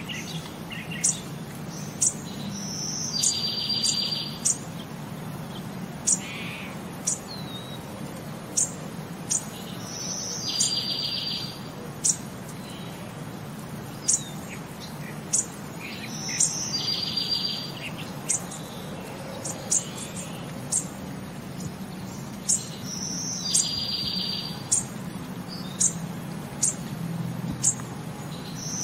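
Looping bird-chirp ambience track: short, sharp chirps every second or two, with a buzzy trill about a second long repeating roughly every seven seconds, over a low steady hum.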